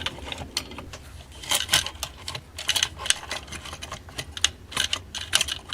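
Irregular small metallic clicks and rattles: cuckoo clock chains and parts knocking together as the clock movement, caught on something, is worked loose from its case.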